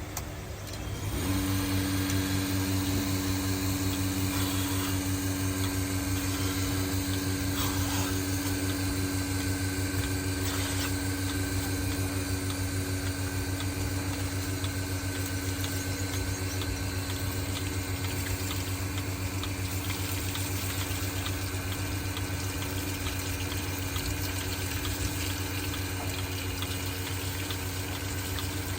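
A motor-driven pump starts about a second in and runs on steadily with an even hum.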